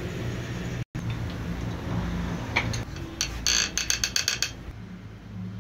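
Ratchet wrench clicking in a quick, even run of about ten clicks about three seconds in, as it turns a fitting on a common rail diesel injector. A steady low hum lies underneath.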